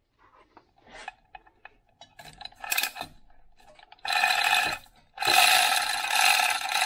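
Overhead chain hoist being worked by hand: a few light clinks and knocks, then about four seconds in a loud, continuous chain rattle with ratchet clicking as the chain runs through the hoist, pausing briefly and starting again.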